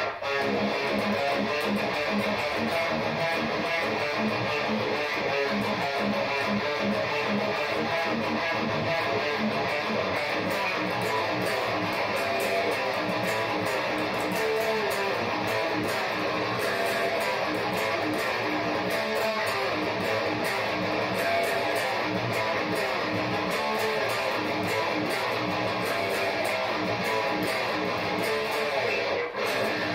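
Schecter SLS C7 seven-string electric guitar with Bare Knuckle Aftermath pickups, played as heavy metal riffing through a Peavey 5150 amp. The playing is continuous, with a brief break near the end.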